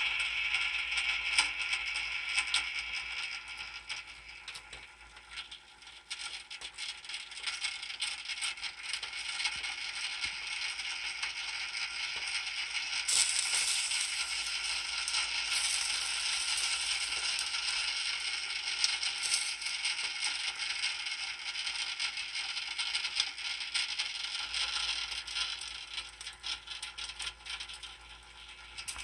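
A pork shoulder roast on a Farberware Open Hearth rotisserie grill sizzling and crackling with many small pops as it turns on the spit over the electric element. It grows louder about halfway through and eases off near the end.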